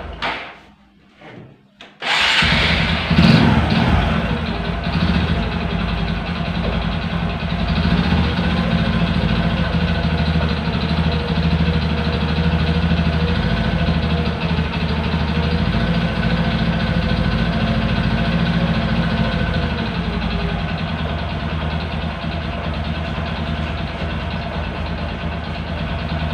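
Honda Supra 125's single-cylinder four-stroke engine falls quiet for about a second and a half, then starts again about two seconds in. It revs briefly, then idles steadily with a rough mechanical noise. The mechanic puts that noise down to a worn connecting rod and clutch housing that need an engine teardown.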